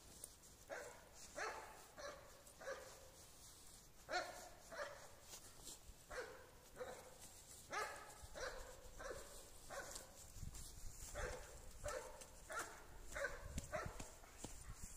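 A dog barking over and over in a steady run, about three barks every two seconds. Under it is the soft scraping of a garden hoe working loose soil.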